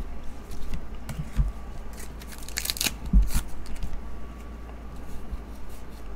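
2023 Topps Star Wars trading cards being flipped and slid over one another in the hand: a run of small clicks and rustles, with a louder rustle and a soft thump about three seconds in.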